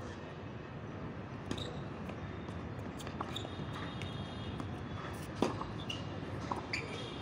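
Tennis ball struck by rackets and bouncing on a hard court during a rally: sharp knocks a second or more apart, the loudest about five and a half seconds in. Short shoe squeaks come in between, over a steady background hum.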